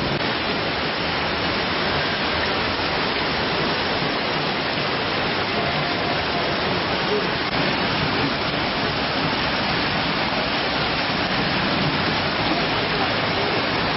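Heavy downpour of rain: a steady, even hiss of rain pouring onto flooded streets.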